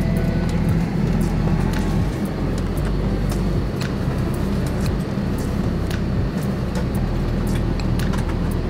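Steady low rumble of an Airbus A320neo cabin as the airliner sits at its stand just after landing, with scattered light clicks and knocks.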